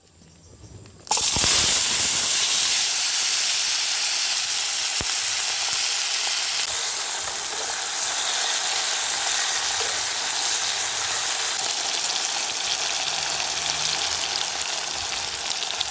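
Sliced tomato, bell pepper and onion dropped into hot leftover frying oil, sizzling loudly from about a second in and settling into a steady sizzle.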